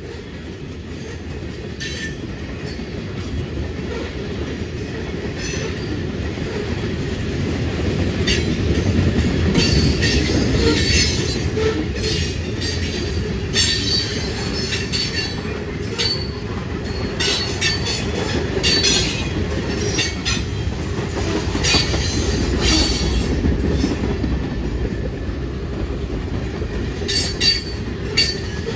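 A train rolling past: a steady low rumble that builds over about the first ten seconds, then many sharp clicks and short wheel squeals as the cars go by.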